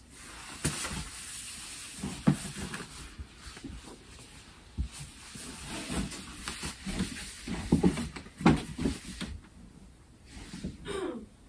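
Rummaging through a clothes closet: rustling of clothes and bags with scattered knocks and thumps, loudest about eight seconds in.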